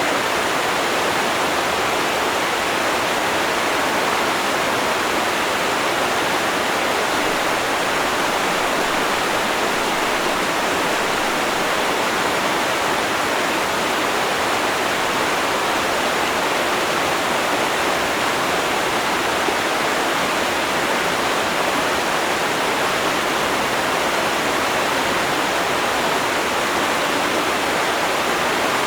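River water flowing and rushing, a steady even roar with no breaks.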